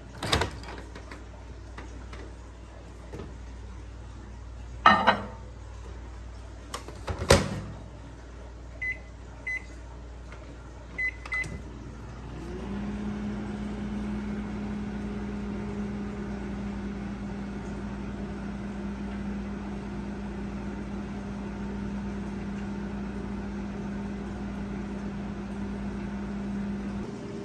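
Panasonic Genius Sensor 1250 W inverter microwave oven. First come a few sharp clunks as the mug goes in and the door shuts, then four short keypad beeps. From about twelve seconds in the oven runs with a steady low hum while it heats the tea.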